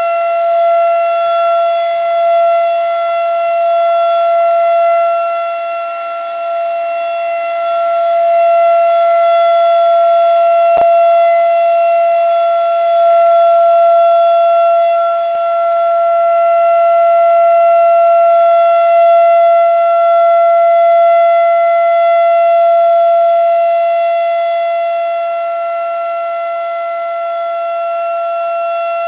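Federal Signal RSH-10 Thunderbeam rotating electronic warning siren sounding a steady, unwavering Full Alert tone, its loudness slowly swelling and fading as the sound sweeps around.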